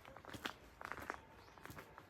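Footsteps of a person walking, a run of uneven crunching steps.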